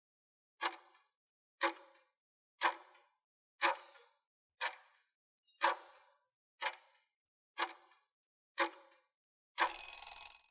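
Countdown timer sound effect: a clock-like tick once a second, nine times, then a brief ring lasting about a second as the time runs out.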